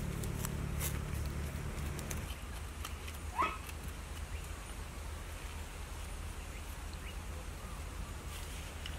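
A single brief rising animal call about three and a half seconds in, over a steady low hum.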